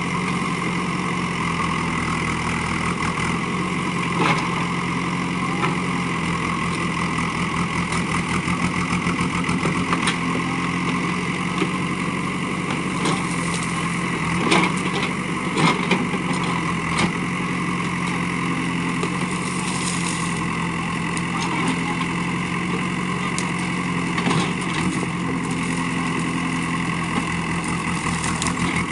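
JCB backhoe loader's diesel engine running steadily as the backhoe arm digs out and drags a tree, with scattered sharp cracks and knocks from the branches and bucket, a cluster of them in the middle.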